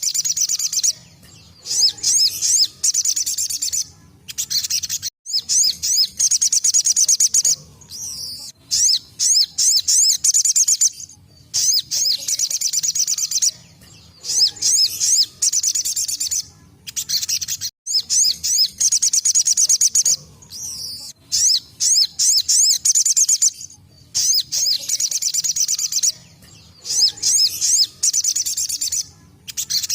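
Little spiderhunter (sogok ontong) singing its rapid 'tembakan' song: runs of very fast, high-pitched chirps, each lasting a second or two, repeated again and again with short pauses between.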